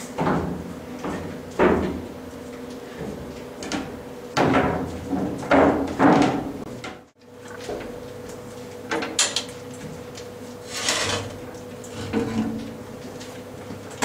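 Irregular clunks, knocks and scraping of heavy metal equipment being handled and shifted about, over a steady faint hum.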